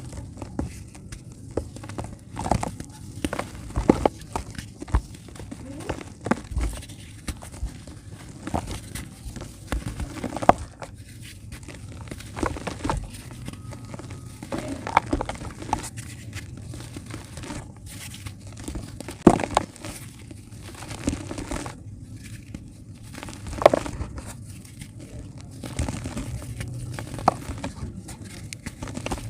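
Dry dirt clumps crumbling and breaking apart: a continuous crinkly crunching with irregular sharp cracks, a few of them much louder.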